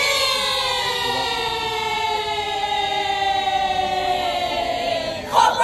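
A group of voices holding one long note in unison, the pitch sagging slightly, broken off by a short loud burst near the end.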